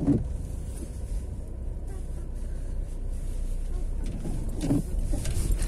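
Car engine and road noise heard from inside the cabin: a steady low rumble as the car rolls slowly along.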